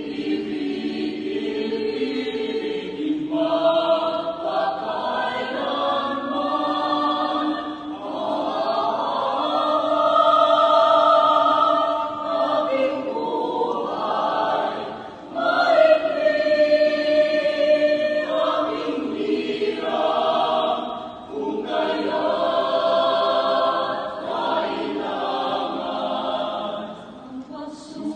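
Mixed choir of men's and women's voices singing in harmony, in long sustained phrases that swell louder and fall back.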